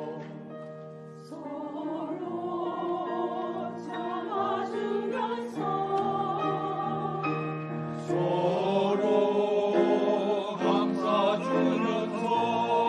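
Church choir singing a hymn in parts with accompaniment, sustained chords that grow louder about eight seconds in.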